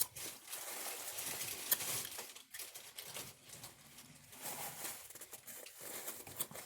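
Faint, irregular crinkling and rustling of food packaging being handled.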